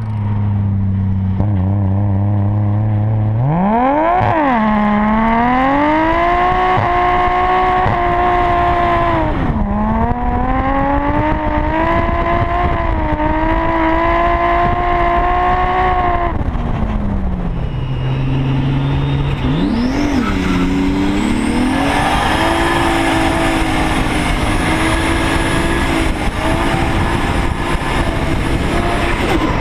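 Nissan Cefiro A31's RB26DETT twin-turbo straight-six revving hard while the car drifts, with tyres squealing. The engine note climbs sharply about four seconds in and holds high with a brief dip, falls back to a low steady note around the middle, then blips and climbs again and stays high near the end.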